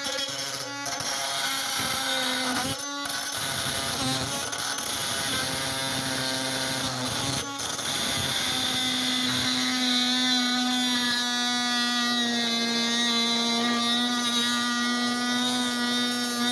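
Oscillating multi-tool running under load as its blade cuts through fasteners, a steady buzzing hum that breaks off briefly three times in the first half and then runs unbroken.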